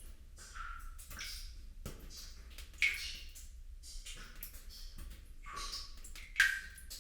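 Water sound effect: irregular drops and small splashes, several a second, each with a short ringing plink, the two loudest about three seconds in and near the end.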